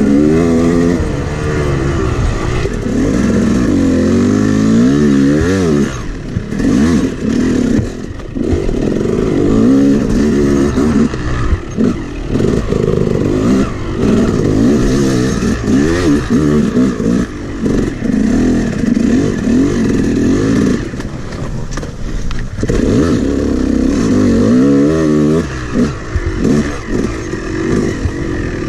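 Two-stroke Yamaha dirt bike engine revving up and falling back again and again as it is ridden over rough trail, with a couple of short lulls between bursts of throttle.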